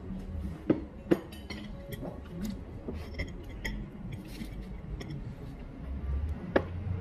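A metal fork clinking against ceramic plates during a meal: two sharp clinks about a second in, one near the end, and lighter taps between, over a low background hum.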